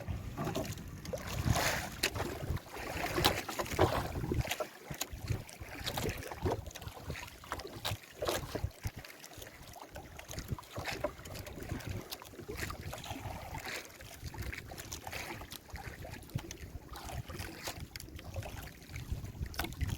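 Water splashing and slapping around a small boat, with scattered knocks and wind rumbling on the microphone.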